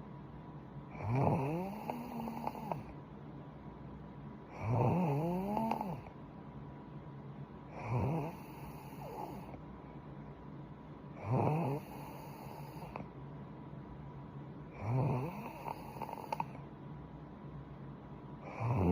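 A young woman snoring in her sleep: a short pitched snore about once every three and a half seconds, six in all, each lasting about a second.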